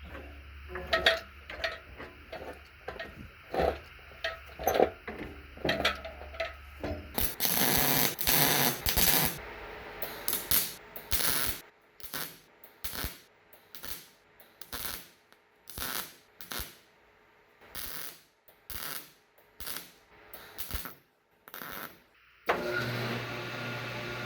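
Hand work on a tractor's metal transmission parts: a long run of sharp clicks, clinks and clanks, at first close together and later spaced out with quiet gaps. A steady hum starts near the end.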